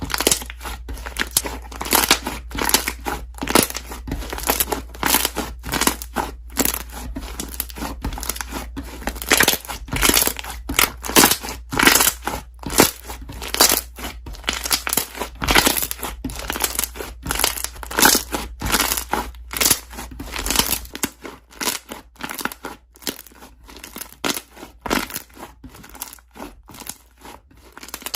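Slime being pressed and stretched by hand, trapped air bubbles popping in quick, irregular clicks and crackles.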